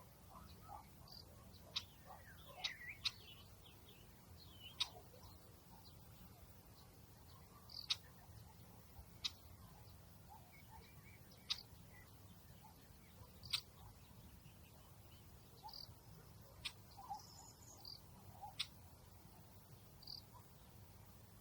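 Quiet nature ambience: sparse sharp clicks every second or two and a few faint, short, high chirps over a low steady rumble.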